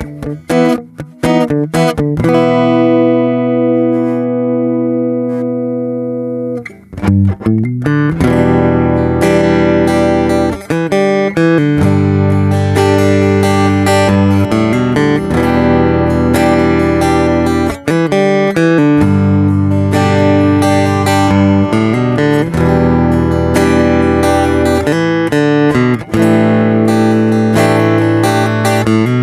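Stratocaster-shaped flat acoustic-electric guitar with a Marupá body and an LR Baggs M1 body-sensing pickup, played plugged straight in with no effects, giving a miked-acoustic tone. A few picked notes, then a chord left ringing and fading, then steady rhythmic chord playing from about seven seconds in.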